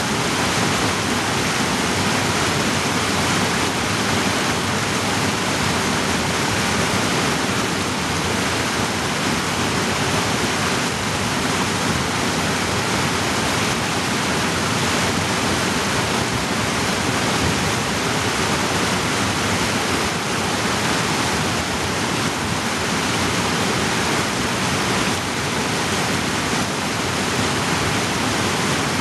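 A fast mountain creek rushing and splashing over boulders in a steady, loud roar of white water.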